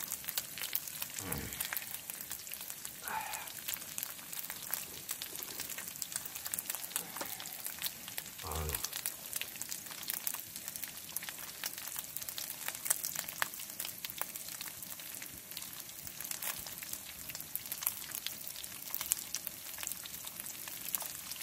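Pork belly slices sizzling in oil in a frying pan, a steady hiss with frequent small crackles and spits of fat.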